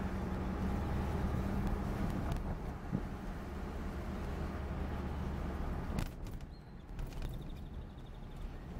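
1975 Cadillac Sedan DeVille's 500-cubic-inch V8 and road noise heard from inside the cabin while driving, a steady low hum. A brief thump comes about six seconds in, after which the sound is a little quieter.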